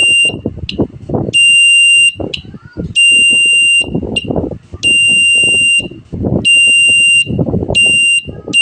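Electronic buzzer of a home-made relay-driven fire alarm giving a steady high-pitched tone in on-off bursts. A short burst ends just after the start, then five more follow, each lasting under a second to about a second. The alarm sounds only while its switch is held and stops as soon as it is released, which is how a non-latching circuit behaves.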